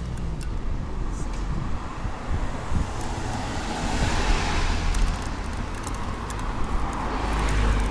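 Road traffic: cars driving past close by, a steady low rumble of engines and tyres that swells as a car passes about halfway through and again near the end.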